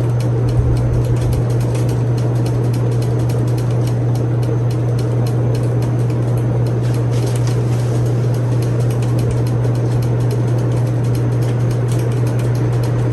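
52-inch Gulf Coast Tiara ceiling fan with a 188x25mm motor running steadily: an even motor hum with a wash of air noise.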